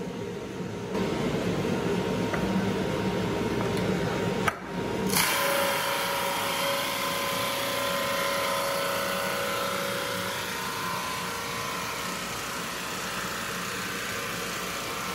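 SuperMax 19-38 drum sander running with its dust collector, sanding a glued-up walnut cutting board as it feeds under the drum. About four and a half seconds in the sound drops out for a moment, then turns brighter and hissier.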